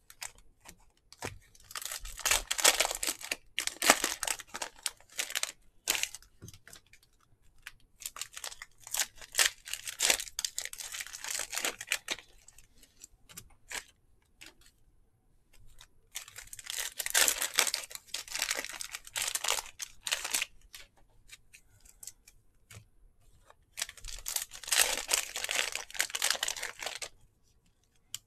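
Foil trading-card pack wrappers being torn open and crinkled by hand, in four bouts of a few seconds each, with small handling clicks between.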